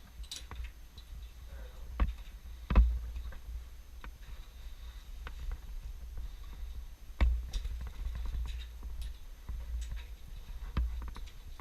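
Footsteps and knocks on old wooden ladder rungs and boards as someone climbs: scattered thumps and clicks, the loudest a little under three seconds in, over a steady low rumble.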